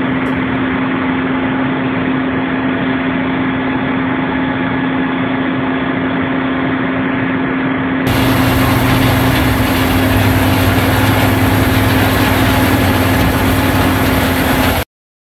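Steady mechanical drone with a strong constant hum. About eight seconds in it gives way to the louder, fuller running sound of a John Deere S-Series combine harvesting corn, which cuts off abruptly just before the end.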